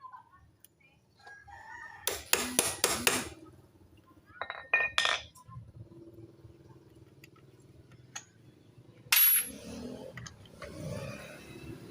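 Metal hand tools and engine parts clinking and clattering in several short bursts of sharp knocks.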